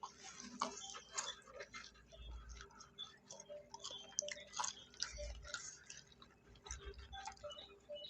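Faint eating sounds: chewing with many scattered small clicks and ticks.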